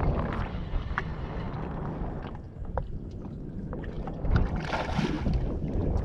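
Wind rumbling on the microphone out on a boat, with scattered small clicks and knocks and a brief louder rush of noise about five seconds in.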